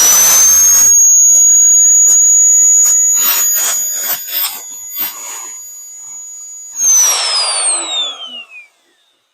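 Electric drill motor spinning up to a steady high whine and running a bit back through a hole in half-inch steel plate, with irregular clattering in the middle of the run. The motor then winds down with a falling whine about seven seconds in.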